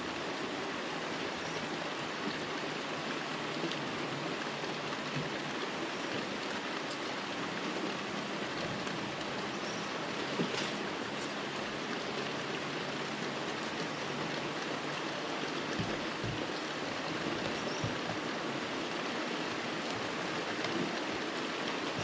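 Steady rain falling on trees and ground: an even hiss with the odd louder drop tick.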